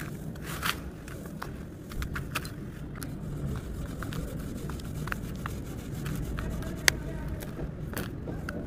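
Hands squeezing and crumbling damp, gritty sand mix in a plastic tub: soft crunching with scattered crackles and clicks of grit, one sharper click late on, over a steady low rumble.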